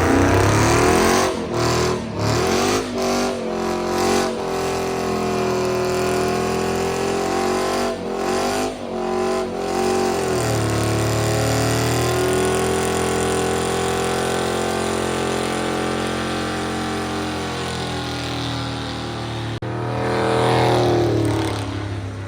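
Car doing a burnout: the engine is revved in short blips, then held at high revs for about ten seconds while the rear tyres spin, with a noisy hiss over the engine note. Near the end the engine note rises and falls once more.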